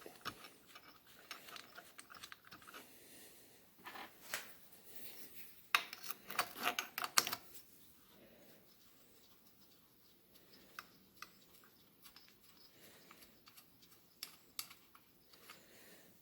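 Light metallic clicks and clinks of a hand wrench working nuts loose on an engine, in a few short scattered runs, loudest about six to seven and a half seconds in, with near-quiet stretches between.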